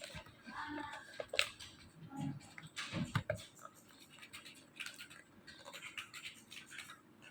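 Irregular scratching, rustling and clicking of objects being handled, with a few sharper knocks.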